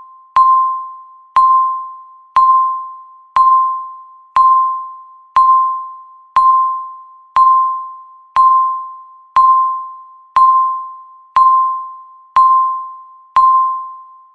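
Countdown timer beeping once a second: a sharp electronic beep on a single high tone that dies away over the second, fourteen beeps in all, each marking one second counted off.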